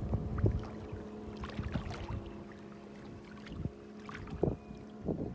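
Kayak paddle strokes: irregular splashes and light knocks of the paddle in the water and against the hull, over a steady low hum.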